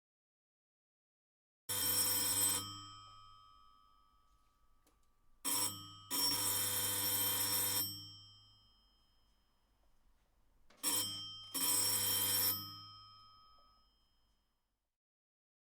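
Electric doorbell bell ringing in three goes. First comes one ring of about a second. Then a short ring and a longer one of nearly two seconds, then a short ring and a second one of about a second. Each rings on and dies away after the button is let go.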